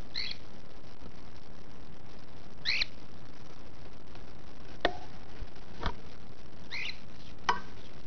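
Cockatiel giving three short chirps a couple of seconds apart, with three sharp clicks or taps in the second half, over a steady hiss.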